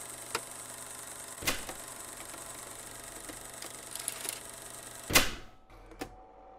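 Steady background hum, like room tone, with a few scattered knocks and clicks. The loudest is a short thump about five seconds in, after which the background drops to a quieter, different hum.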